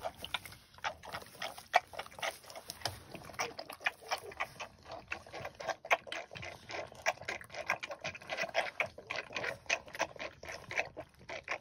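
Three piglets slurping milk from a stainless steel bowl: a quick, irregular stream of wet smacks and clicks.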